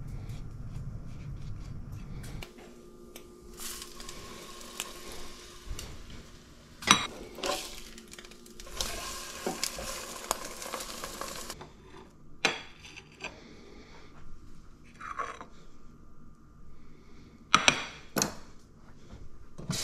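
Kitchen cooking sounds: pots, pans and utensils clinking and clanking, with two stretches of steady hiss and a few sharp clanks near the end.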